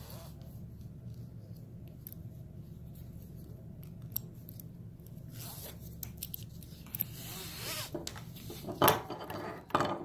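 Nylon webbing being pulled and slid through the slots of a metal over-center cam buckle, the strap rubbing and scraping through in the second half, with a sharp knock near the end as the buckle hits the tabletop.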